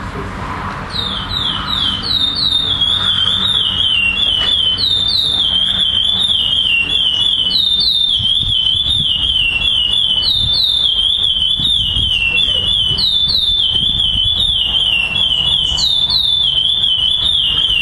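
Adult black male chestnut-bellied seed finch (curió) singing the 'clássico' song: loud, clear whistled phrases of sliding, falling notes, repeated over and over, starting about a second in.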